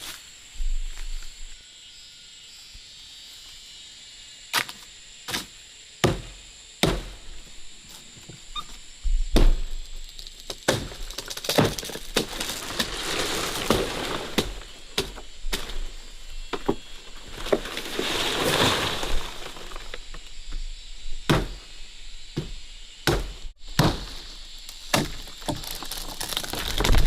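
A blade chopping at wood, with irregular sharp strikes, a few a second at their busiest. A stretch of rustling hiss runs through the middle.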